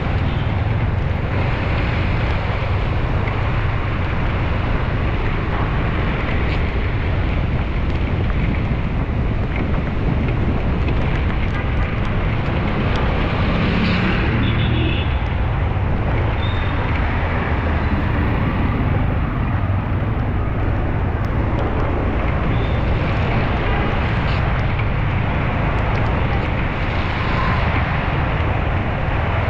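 Steady vehicle and street-traffic noise with a heavy low rumble, as from a moving vehicle. A few brief higher sounds stand out about halfway through.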